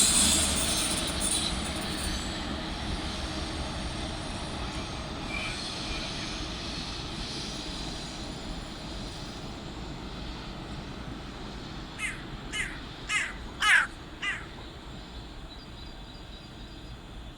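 The noise of a departing ICE 1 high-speed train fades away over the first few seconds. About twelve seconds in, a bird gives five short calls in quick succession; the fourth is the loudest.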